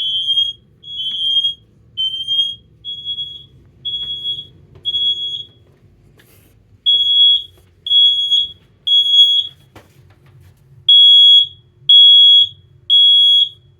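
Kidde HD135F heat alarm sounding on test: loud, high-pitched beeps in groups of three with a pause between each group, the temporal-three alarm pattern. In the first half, fainter single beeps about once a second come from an alarm still winding down.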